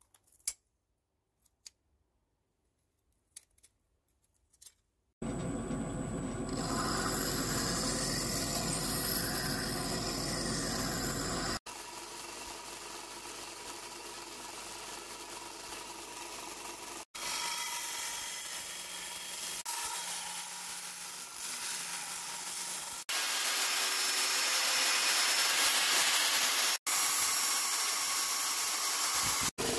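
A few faint clicks, then electric belt grinders running and sanding the steel blades of hand-forged spoon-carving hook knives: first a wide-belt grinder, then a narrow belt sander working a curved blade held in a vise. Steady grinding noise that stops and starts abruptly several times, loudest near the end.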